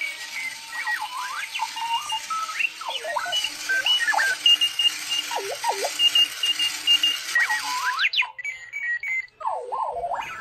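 Clocky runaway alarm clock sounding its alarm: random electronic chirps, warbles and beeps that glide up and down in pitch, over the loud whir of its wheel motors driving on carpet. The motor whir cuts out suddenly about eight seconds in while the chirping continues.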